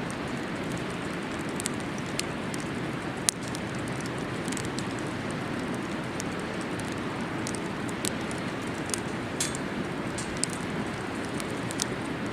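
Wood campfire crackling, with scattered sharp pops, the loudest about three seconds in, over a steady rushing hiss.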